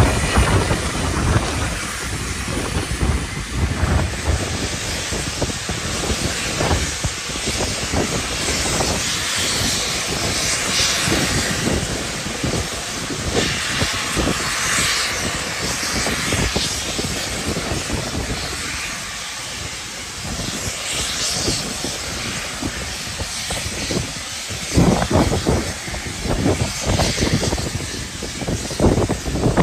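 Steam hissing from two steam locomotives standing ready to leave, LMS Black Five 44806 and rebuilt West Country Pacific 34028 Eddystone, with gusty wind buffeting the microphone, strongest near the end.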